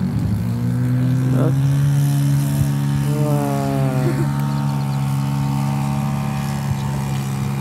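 Radio-controlled model aeroplane's engine running at high power as the plane takes off and climbs, its pitch rising a couple of times as the throttle opens.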